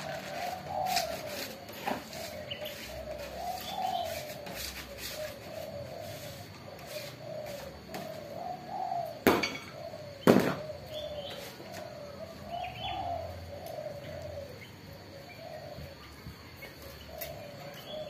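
Caged doves cooing over and over in repeated phrases, with faint chirps of other small birds. Two sharp knocks about a second apart, around nine and ten seconds in, are the loudest sounds.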